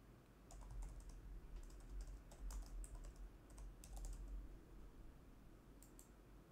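Faint typing on a computer keyboard: a quick run of keystrokes, then two clicks close together near the end.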